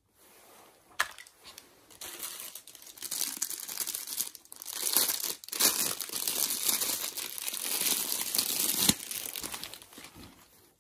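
Clear plastic packaging crinkling and rustling as it is pulled open and off a product, with a sharp click about a second in and a snap near the end.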